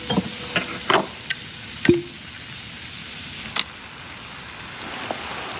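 Meat searing in a frying pan, a steady sizzle with several sharp clinks and knocks of utensils against the pan in the first two seconds and one more a little past halfway.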